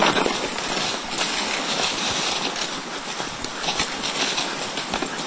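A dog sled running along a snow trail behind a team of huskies: a steady hiss and scrape of the runners over the snow, with a quick, irregular patter of the dogs' paws.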